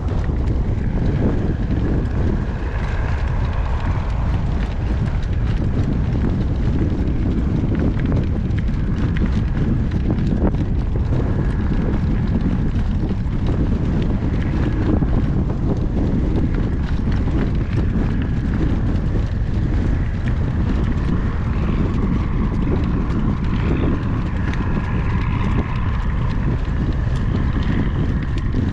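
Strong gale wind buffeting the microphone in a steady low rumble, with a harnessed horse's hoofbeats faintly underneath.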